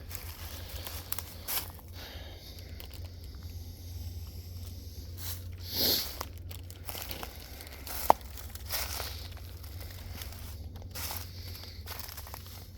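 Intermittent faint rustling and crinkling with scattered small clicks over a low steady rumble; a brief hissing swell comes about six seconds in and a single sharp click about eight seconds in.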